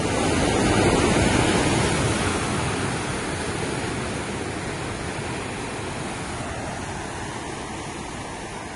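Sea surf washing against the shore, a steady rushing wash that swells about a second in and then slowly eases off.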